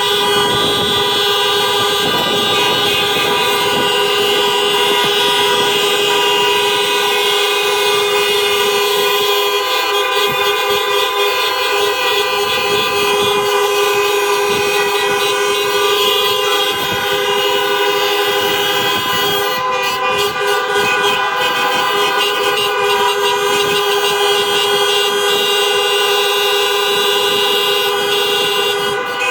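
Many car horns sounding together in one long, unbroken chorus of steady overlapping tones: a mass memorial honk.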